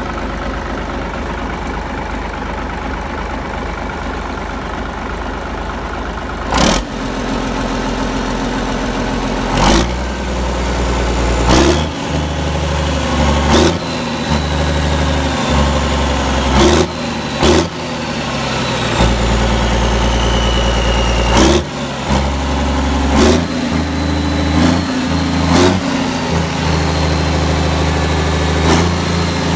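Yanmar 6KH six-cylinder turbocharged marine diesel running on a test stand, idling steadily and then revved up and down repeatedly from about ten seconds in. A high turbo whistle falls in pitch as the revs drop, with short sharp knocks at the throttle changes.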